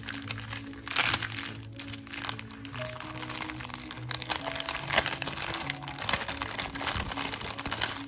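Clear plastic packaging bag crinkling and crackling as it is pulled open and handled, in irregular crackles with loud bursts about a second in and about five seconds in. Background music with sustained low notes plays underneath.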